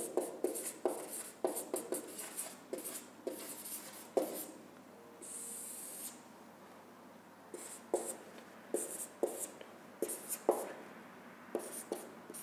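Dry-erase marker writing on a whiteboard: a string of short strokes and taps of the tip, with one longer stroke about five seconds in.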